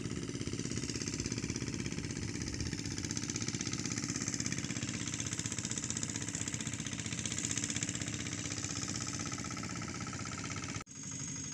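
Hand tractor's engine running steadily with a fast, even beat while it tills a flooded rice paddy. Near the end the sound cuts out for an instant.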